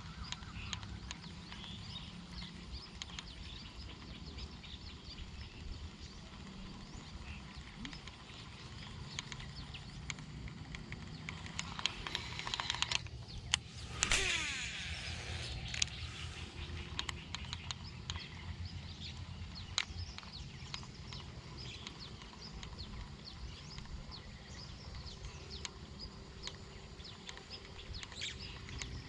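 Outdoor background noise: a steady low rumble with scattered small clicks and ticks. About halfway through, a brief louder whirr falls in pitch.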